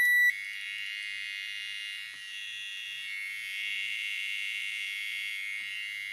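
A microwave control board's piezo beeper gives one short beep, then keeps up a steady high-pitched buzzing noise. This is the fault: after the beep, the processor pin keeps pulsing the beeper's driver transistor instead of dropping to zero.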